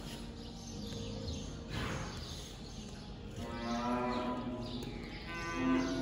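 Cattle in the herd mooing twice, one long call about midway and a louder second one near the end.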